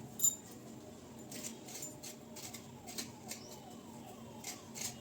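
Fresh ginger root being peeled by hand: faint, irregular short scrapes and clicks as the skin is scraped off, with one sharper click near the start.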